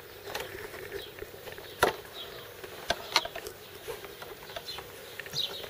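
Wooden folding-kayak frame parts and their metal fittings clicking and knocking as they are handled and fitted together, in irregular sharp clicks, the loudest about two and three seconds in, over a faint steady hum.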